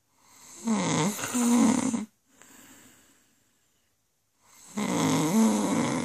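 A woman snoring in her sleep: two long, loud snores about four seconds apart, each with a low buzzing tone that wavers in pitch. A much quieter breath comes between them.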